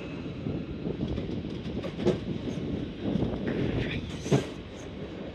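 Passenger train coaches rolling past a platform: a steady low rumble of wheels on rails, with sharp clacks of the wheels, the loudest about two seconds in and just after four seconds.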